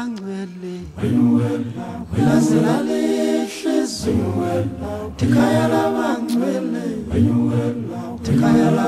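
An unaccompanied choir singing in harmony, with deep low voices under the melody, in phrases that break every second or two.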